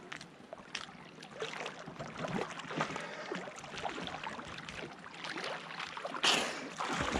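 Water sloshing and splashing close by, full of small irregular drips and clicks, with a short louder burst of noise about six seconds in.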